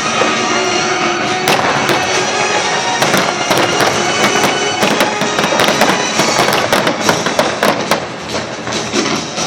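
Fireworks going off in rapid, repeated bangs and crackles over loud music.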